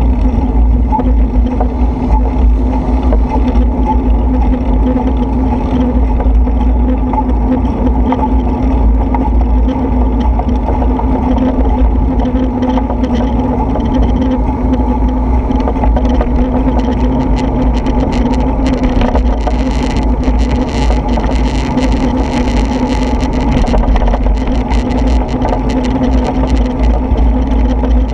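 Steady droning hum of a vehicle travelling along a wet road, with heavy wind rumble on the microphone. A hiss of spray rises for several seconds about two-thirds of the way through.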